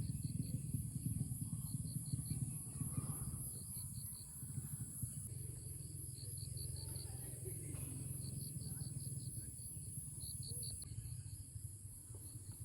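Outdoor nature ambience: a steady high drone, with short chirps repeated in quick groups of three to five, over a low rumble.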